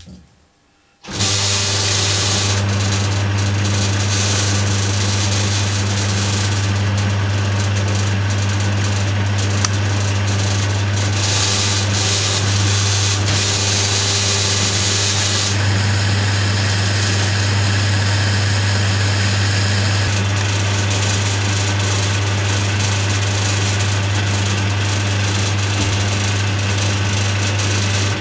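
Dunford Viceroy lathe started about a second in and running steadily with a low hum, while a boring bar under power feed cuts inside the bore of an EN8 steel part held in a three-jaw chuck; the high cutting hiss changes twice near the middle. The lathe is switched off right at the end and winds down.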